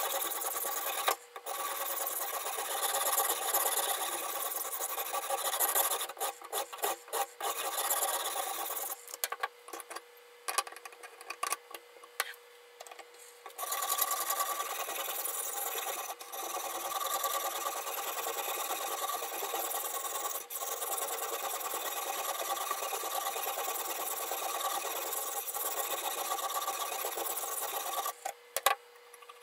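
Sharpening stone on a guided-rod knife sharpener rubbing quickly back and forth along a kitchen knife's edge, a steady scraping. About nine seconds in it breaks into a few separate strokes and clicks for several seconds, then the steady scraping resumes until near the end.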